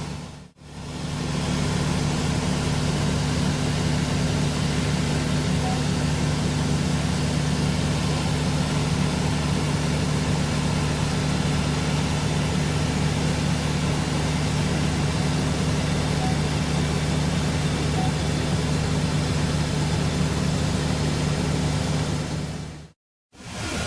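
Gleaner S98 combine running steadily, a constant engine and machinery drone with a steady low hum. It cuts out briefly just after the start and again near the end.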